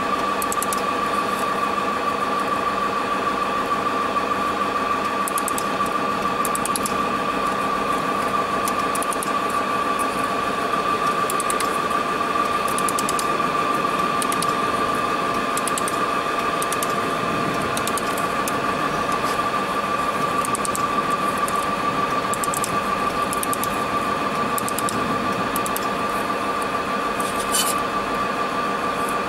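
Laser welding machine running with a steady hum and a constant high whine, crossed by short runs of faint quick ticks as the pulsed laser fires on a stainless steel seam.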